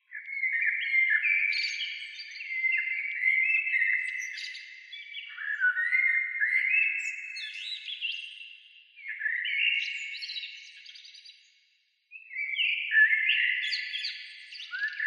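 High-pitched background music: a chiming melody of cascading stepped notes that ring into one another, in phrases a few seconds long, breaking off briefly about twelve seconds in.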